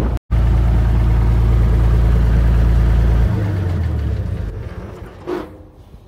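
Tractor engine running loud and steady close by, with a split-second break just after the start. About three seconds in, its note drops and the sound fades away.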